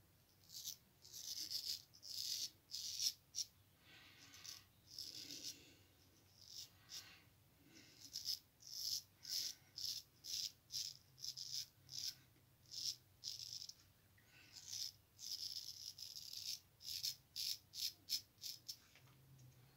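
Straight razor scraping through lathered stubble on the neck and jaw: short rasping strokes in quick runs, a few strokes a second, with brief pauses between runs.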